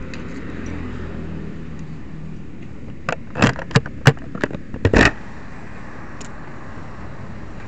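A motorcycle's single-cylinder engine runs low and fades out over the first couple of seconds. Then comes a quick run of sharp clicks and knocks, the loudest sounds, between about three and five seconds in.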